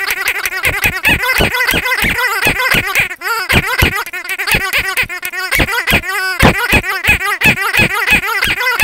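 Pink squeaky dog toy squeezed over and over by hand: a fast, unbroken run of high squeaks, about four a second.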